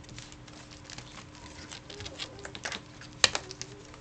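Irregular light clicks and taps of picture cards being handled and taken off a board, with one sharper click about three seconds in, over a faint steady hum.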